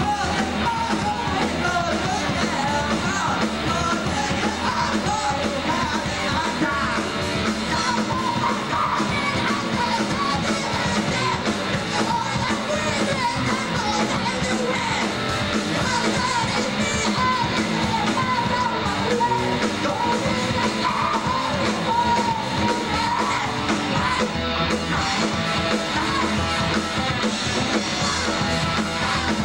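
Live band: a male singer singing and shouting into a microphone over guitar and drums.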